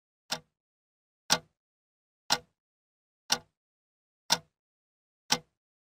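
Clock ticking once a second: six sharp, evenly spaced ticks with dead silence between.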